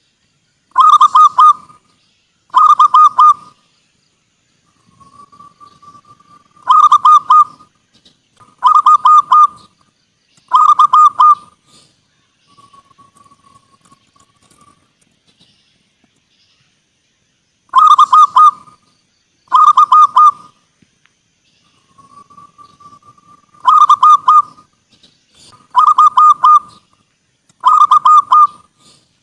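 Zebra dove (perkutut) cooing. A soft drawn-out note is followed by a run of loud, rolling, stuttered coos about two seconds apart, and the pattern repeats three times.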